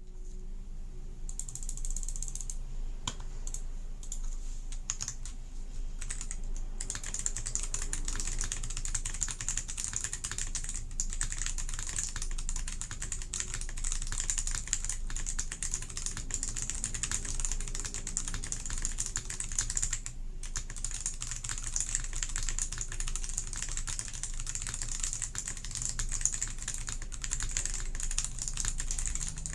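A CIY GAS67 gasket-mounted mechanical keyboard with AKKO Jelly Purple switches, a polycarbonate plate and PBT dye-sub keycaps being typed on: a stream of keystroke clacks. The keystrokes are sparse for the first few seconds, then become fast and dense, with a brief pause about twenty seconds in.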